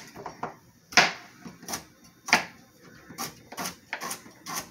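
Kitchen knife chopping carrots on a cutting board: about a dozen uneven knocks, two or three a second.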